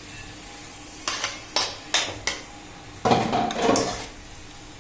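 Kitchenware clinking against a cooking pan: four light knocks spaced about half a second apart, then a louder clatter with a short metallic ring about three seconds in.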